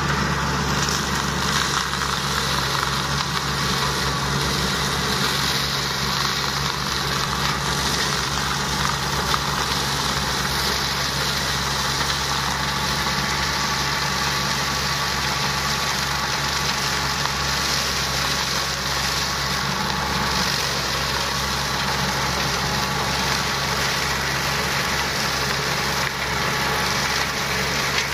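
Small engine of a homemade flail mower built from a tracked snowblower, running steadily at constant speed with no change in pitch.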